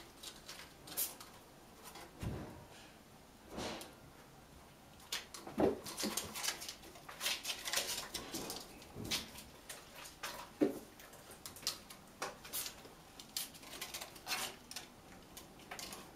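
Kittens climbing a cat tree of natural wooden branches: a run of quick scratches, taps and knocks from claws on the bark and from the hanging toy they paw at, busiest through the middle.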